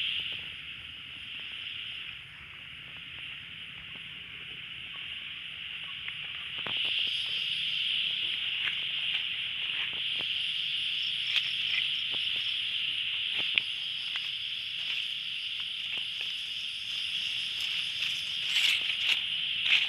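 Steady, high-pitched chorus of night insects, with scattered clicks and rustles of leaves being brushed, busiest near the end.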